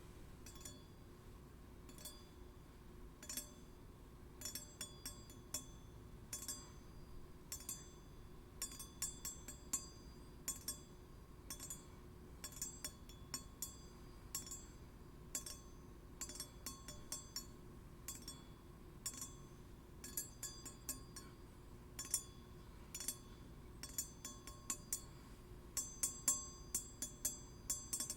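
Steel blades tapped and clinked against each other: many light metallic clinks with short high ringing, in irregular clusters that come thicker and louder near the end, over a faint steady hum.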